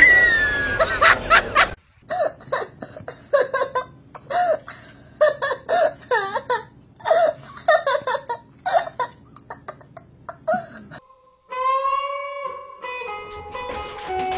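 A run of short, curving vocal calls, then about three seconds before the end an electric guitar plays held plucked notes.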